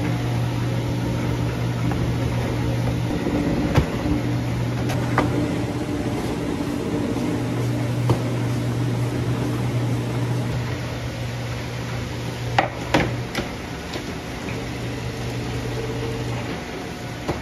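A steady low machine hum with a few sharp knocks and clicks, two of them close together in the latter part.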